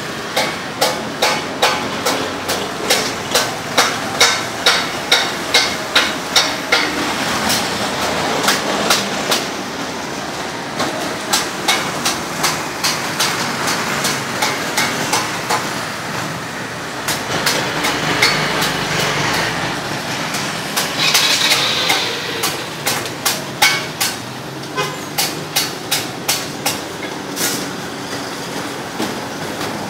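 Repeated sharp knocks in runs of about two to three a second, with short breaks, over a steady background noise.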